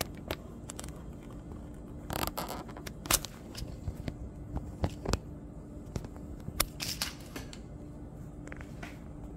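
Scattered light clicks and knocks of something being handled, bunched in a few short clusters, over a steady faint hum.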